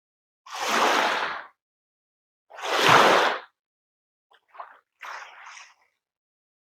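Water splashing in separate short rushes, like small waves lapping: two louder splashes about a second each, then a few softer, shorter ones near the end, with silence between them.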